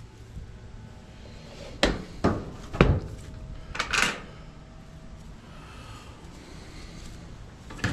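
Hinged corrugated galvanized steel egg-box lid being shut and its metal latch worked by hand: three sharp metal clacks about two seconds in, then a brief scraping rattle about a second later, and one more click near the end.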